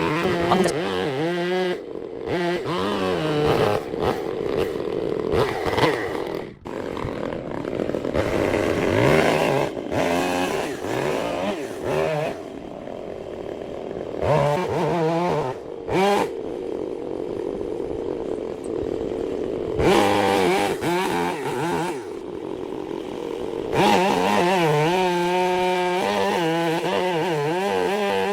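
Chainsaw engine running and cutting wood, its pitch rising and falling as it works, with abrupt changes every few seconds.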